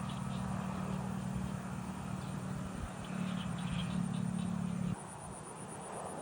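A steady low engine hum that cuts off abruptly about five seconds in, over rice-field ambience with faint chirping and a thin high insect-like drone.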